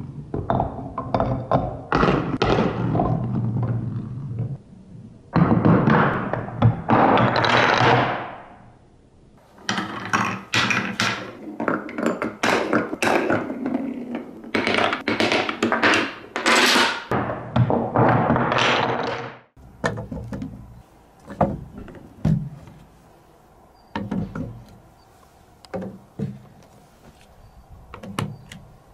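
Balls rolling and clattering through a wooden marble run, with a steady rolling rumble broken by many sharp clacks as they drop between pieces. About two-thirds of the way in, this stops suddenly and gives way to quieter, scattered knocks of wooden track pieces being set in place.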